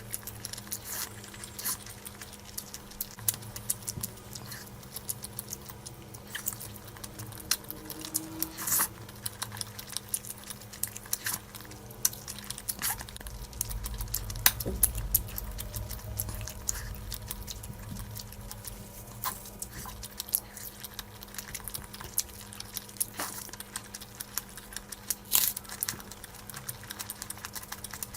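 Close-miked eating sounds: wet chewing and lip smacks of someone eating rice and curry, many small irregular clicks over a faint steady hum.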